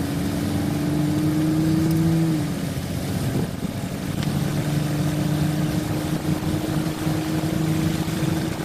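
A vehicle engine running steadily with a low drone. Its pitch eases down a step about two seconds in, then holds level.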